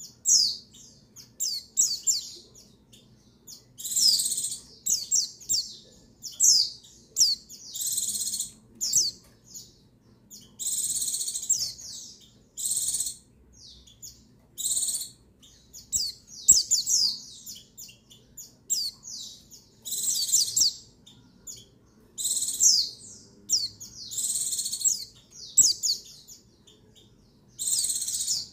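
Female white-eye (pleci) calling: short bursts of high, rapid chirps and quick downward twitters, repeated about every one to two seconds. It is the call of a female in breeding mood, used to excite male white-eyes into song.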